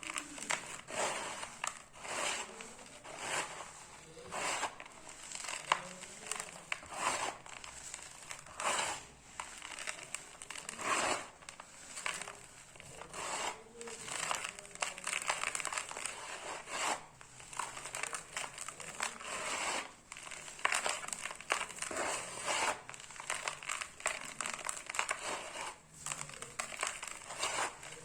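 Dry cement crumbling, a steady run of gritty crunches and crackles in irregular bursts.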